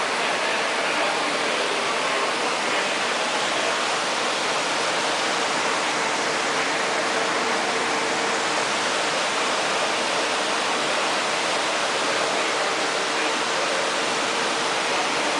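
Water pouring steadily, a constant rushing noise with a faint steady hum underneath.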